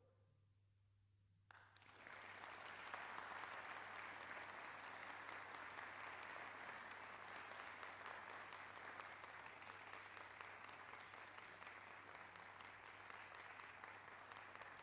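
Audience applause, which starts after about a second and a half of silence and then slowly eases.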